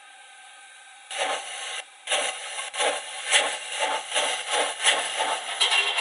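Factory-fitted sound decoder of a Roco HO-scale DB class 038 model steam locomotive playing its running sound through the model's small speaker. Steam exhaust chuffs start about a second in and quicken to about three a second as the locomotive gets under way, with a steady steam hiss joining near the end.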